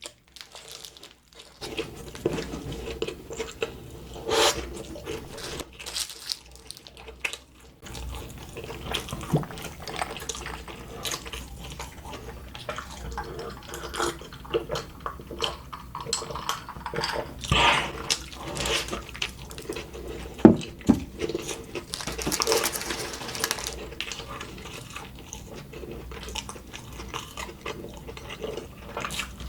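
A person chewing and biting into a McDonald's Shanghai burger, close to the microphone: an irregular run of wet mouth sounds with a few louder bites.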